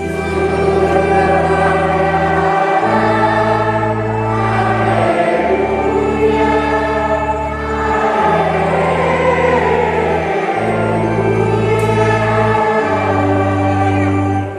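Children's choir singing a hymn over sustained keyboard chords, the chords changing about every two to three seconds.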